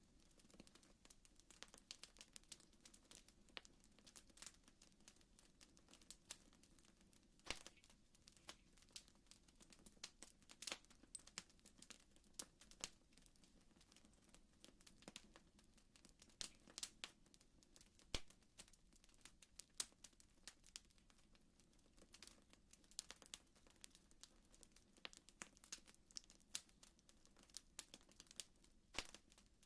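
Faint crackling of a wood fire: irregular snaps and pops over a low, steady rumble.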